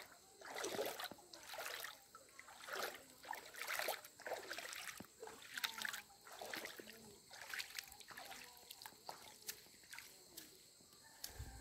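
Footsteps wading through shallow floodwater, sloshing and splashing about once a second at a slow walking pace, growing softer after the middle.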